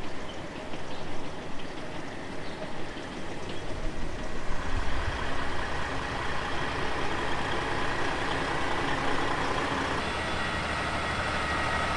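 Tractor pulling a loaded grain cart, engine running and drawing closer; it gets louder about four seconds in and keeps building, with a steady whine over the engine.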